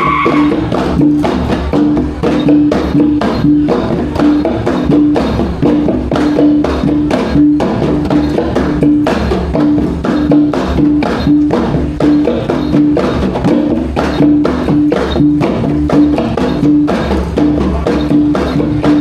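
Live Iban gendang pampat ensemble music: fast, sharp drum strokes over a low pitched note struck about twice a second.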